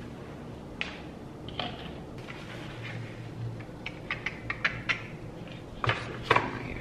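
Small household objects being handled and set down while tidying up: scattered clicks and light knocks, a quick run of five or six clicks about four seconds in and two louder knocks near the end, over a low steady hum.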